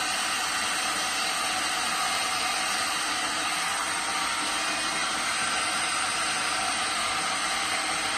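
Heat gun running, blowing a steady hiss of hot air to shrink heat-shrink tubing onto a speaker cable.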